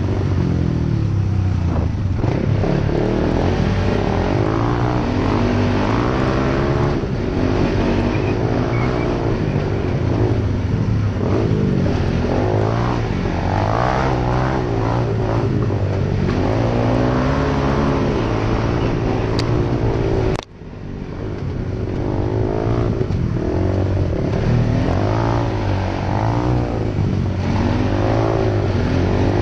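Single-cylinder four-stroke ATV engine running under load on a rough trail, its revs rising and falling with the throttle. About twenty seconds in, the sound drops out for a moment and swells back.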